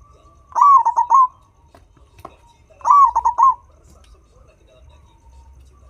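Turtledove cooing twice, close and loud: two quick phrases about two seconds apart, each of about four short coos.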